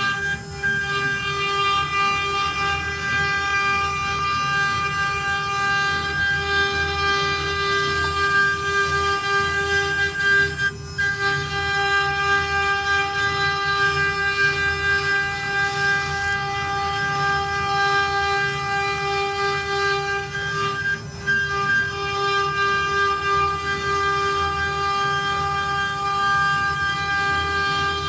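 Stone CNC router spindle running at high speed with a steady high-pitched whine while its engraving bit cuts into a stone workpiece under a coolant stream, with a low rumble beneath. The whine briefly dips twice, about a third and three-quarters of the way through.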